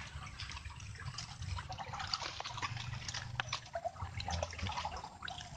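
Muddy water squelching, dripping and trickling as a hand and arm work deep in a flooded eel burrow in soft mud, with many small wet clicks and crackles.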